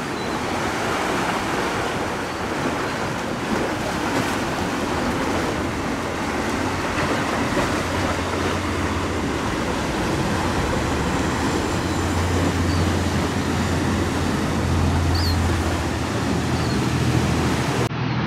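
Large sportfishing yacht running through rough water: a steady rush of waves and bow spray, with the low drone of its engines growing louder in the second half.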